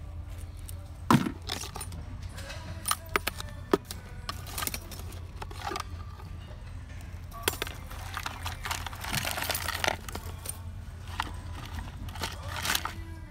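Small metal fishing tackle clinking and rattling as it is sorted by hand in a tackle box, in irregular clicks and clatters, with one sharp clack about a second in.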